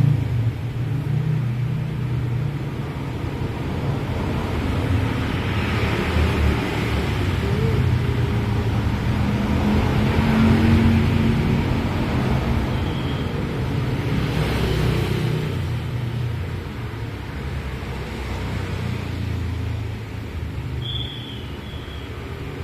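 Steady low rumble of road traffic in the background, rising and falling gently, with two brief faint high tones.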